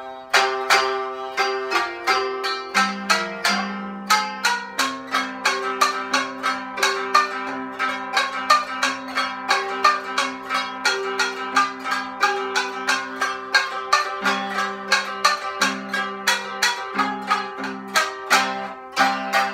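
Tsugaru shamisen and koto playing a duet: a steady run of sharply plucked notes, several a second, ringing over held lower notes.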